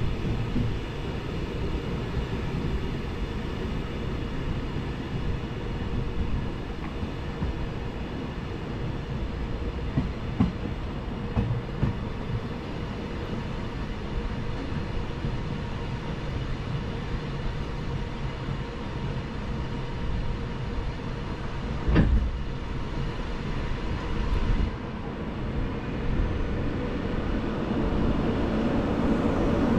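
Glacier Express train running along the track: a steady rumble of wheels and carriage, with a few light clicks and one sharp knock about three-quarters of the way through, growing louder at the very end.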